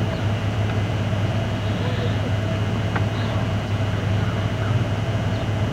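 Steady low hum with a faint higher tone and hiss, unchanging throughout, with a faint voice about two seconds in and a single tick about three seconds in.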